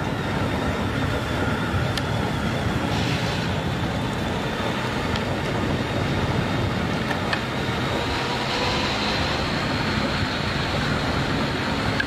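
Steady rush of wind and road noise from a vehicle moving at speed, with a faint high whine underneath.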